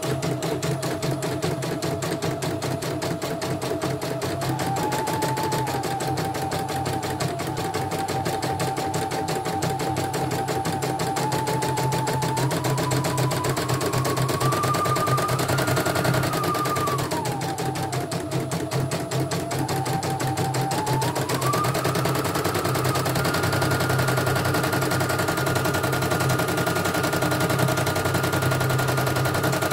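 CNY E900 computerized embroidery machine stitching a design, with its new motor fitted: fast, even needle strokes over a motor whine that steps up and down in pitch several times.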